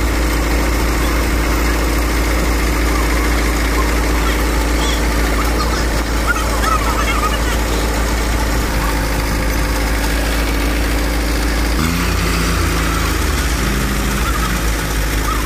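JCB 3DX backhoe loader's diesel engine running steadily close by, its note shifting and wavering about twelve seconds in as the machine takes load.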